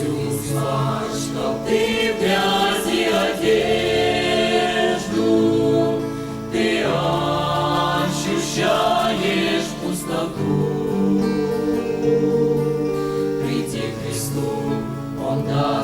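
A choir singing a Christian song.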